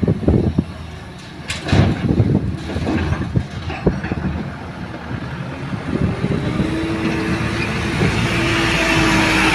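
Hitachi hydraulic excavator at work. Clanks and rattles of the bucket and sand-and-gravel fill fill the first few seconds, then from about six seconds the engine and hydraulics pull harder with a steady drone and a rising whine.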